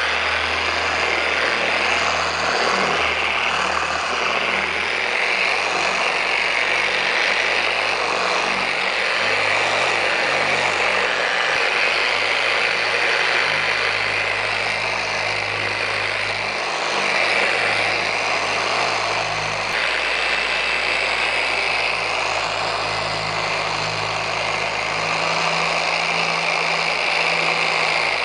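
Dual-action orbital polisher with a foam cutting pad running steadily at low speed (setting 2), spreading cutting compound over a car's clear coat. This is the compounding stage after wet sanding out orange peel. Its low motor hum steps in pitch a few times.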